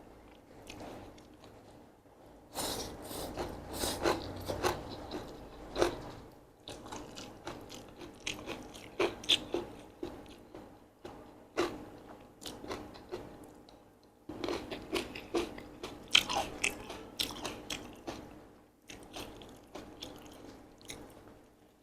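A person chewing mixed Korean sweet-potato glass noodles: irregular runs of many small clicks, broken by two short pauses.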